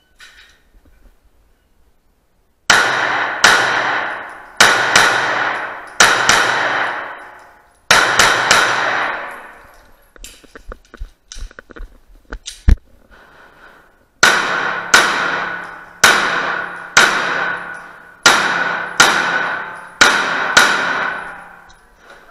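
Smith & Wesson M&P 9c 9mm compact pistol fired in rapid shots, echoing hard off concrete walls. One string of shots runs for about seven seconds, then come a few seconds of small handling clicks and one sharp knock, and then a second string of shots.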